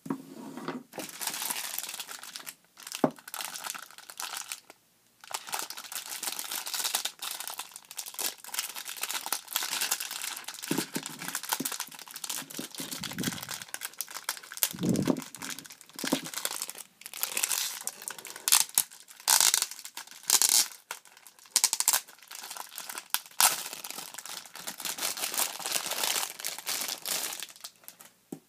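Thin plastic wrapping crinkling and tearing as it is peeled off a small clear plastic case, in irregular sharp crackles with a short pause about five seconds in. A few low bumps from the case being handled come near the middle.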